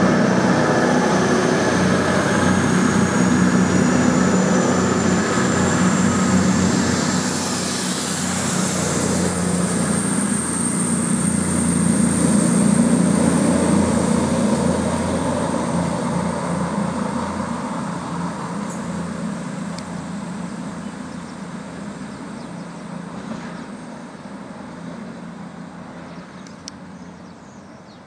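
Voyager diesel multiple unit running on the line, its underfloor diesel engines giving a steady low drone with a thin high whine that rises slowly in pitch, fading away over the second half as the train draws off down the line.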